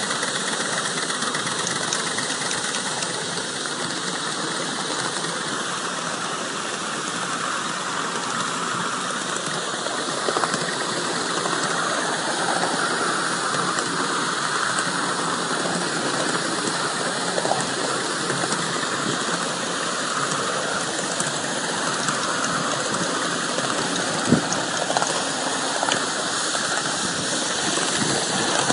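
5-inch gauge live-steam model C2 Atlantic locomotive running, with a steady hiss of steam, and a few sharp clicks along the way.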